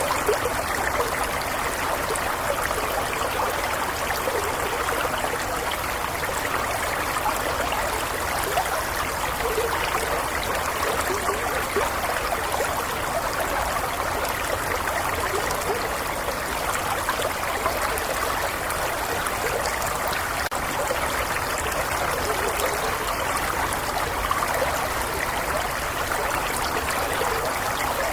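Small stream flowing steadily over stones, an even babbling and trickling of water with no breaks.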